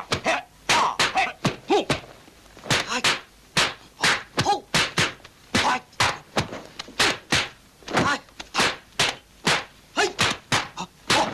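Rapid series of dubbed fight sound effects from a 1970s kung fu film: sharp whacks and thuds of punches and blocks landing, about two to three a second, with short shouts from the fighters among some of the blows.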